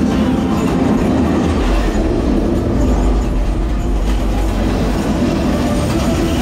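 Steady, loud rumble of a dark-ride vehicle rolling along its track.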